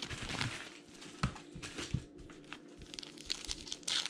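A trading-card pack wrapper being torn open and peeled apart by hand: crinkling plastic wrapper with a few sharp crackles.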